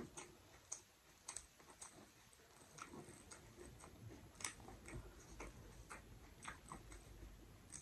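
Faint, scattered small clicks and wet squishes of eating by hand: fingers mixing spinach dal and rice on a tray and gathering it into a lettuce leaf.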